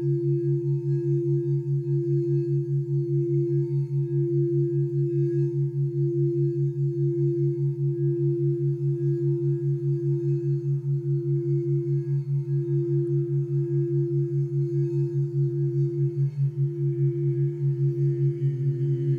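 Crystal singing bowl sung by circling a wand around its rim: a steady, sustained tone that wavers evenly in loudness about four times a second. Near the end, further bowl tones join and slide in pitch.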